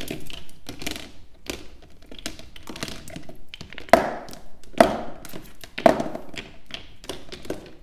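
Small gel polish bottles set down one after another in a plastic basket: a run of light taps and knocks. The three loudest come about four, five and six seconds in.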